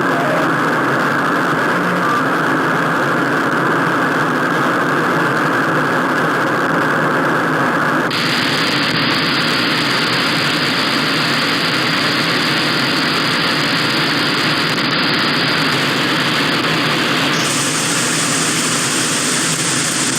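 Steady radio static hiss from a USB TV-tuner stick used as a software-defined radio on the 28 MHz band. The hiss gets brighter in two sudden steps, about eight seconds in and again near the end, as the receive filter is widened.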